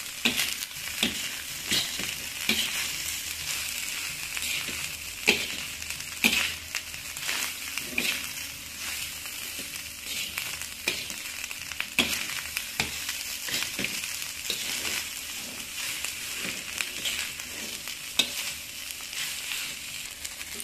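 Fried rice sizzling in a hot pan while a spatula stirs and tosses it, with irregular sharp scrapes and knocks of the spatula against the pan about once a second over a steady sizzle.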